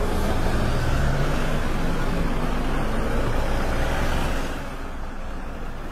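Street traffic ambience: vehicle engines running and passing as a steady wash of noise, easing a little about four and a half seconds in.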